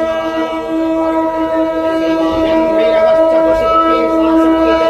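Conch shell (shankha) blown in one long, steady note, sounded during a temple aarti lamp offering.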